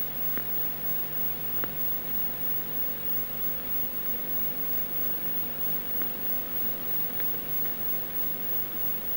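Steady hiss with a low hum and a few faint clicks scattered through it: the noise floor of an old 1950s film soundtrack, with no music or voice.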